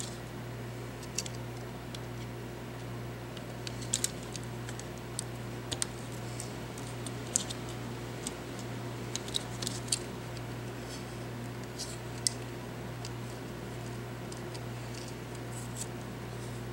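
Scattered small, sharp clicks and taps of plastic and circuit-board parts from a Logitech G500s gaming mouse being handled and pried apart by hand, most of them in the middle, over a steady low hum.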